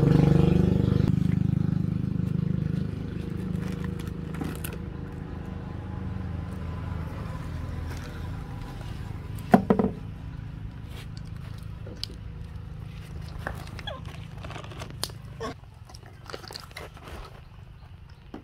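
A motor vehicle's engine hum, fading away steadily over the first several seconds, under scattered small clicks and crinkles of snack packets and wrappers being handled, with one sharper knock about ten seconds in.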